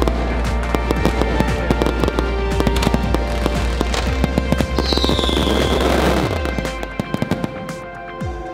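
Aerial fireworks bursting overhead in a dense run of crackling bangs, with a short falling whistle about five seconds in and a few sharp bangs near the end. Background music with a steady bass plays under it and drops away about six seconds in.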